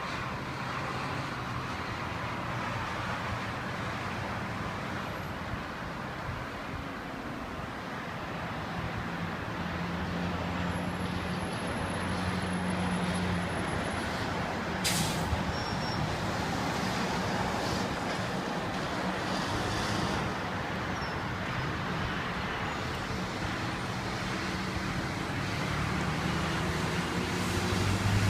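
Rain setting in: a steady hiss that grows gradually louder, with road traffic humming underneath. A single sharp click about fifteen seconds in.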